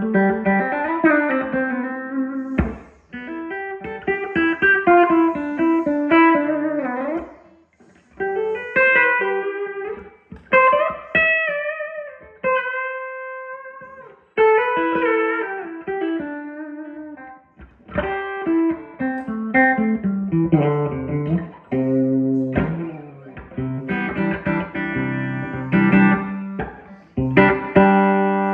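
Electric guitar played through an amplifier: melodic single-note phrases and chords with short pauses between them, and one note held for about two seconds near the middle.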